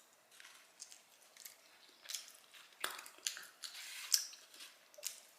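A person chewing food: irregular soft mouth clicks and smacks, more frequent from about two seconds in.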